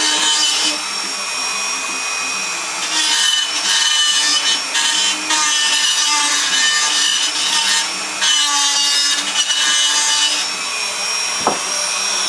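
Dremel rotary tool running at high speed, its bit grinding out and enlarging a hole in an aluminum part: a steady high whine over a grinding rasp that swells and eases several times as the bit is pressed in and let off.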